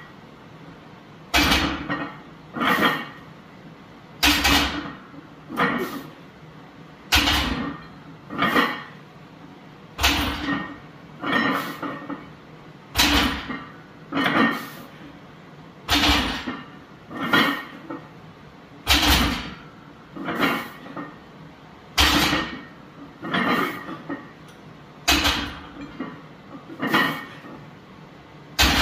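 Plate-loaded barbell clanking on a power rack's safety arms during rack pulls. There are two sharp metal clanks per rep, about a second and a half apart, as the bar leaves the supports and is set back down, and the pair repeats about every three seconds for around nine reps.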